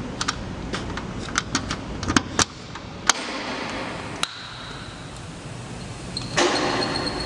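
Sharp clicks and knocks of a key and switches being worked on a high-voltage capacitor bank's control panel, irregular over the first few seconds. After that comes a faint high steady tone, and about a second before the end a louder rushing noise.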